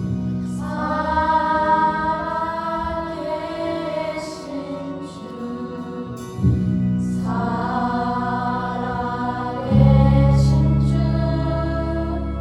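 A choir singing a slow worship song with accompaniment, in long held phrases; new phrases enter about six and ten seconds in.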